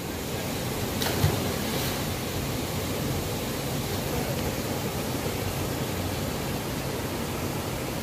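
Steady rush of a waterfall and stream, with a single brief splash about a second in as a person jumps into the pool below.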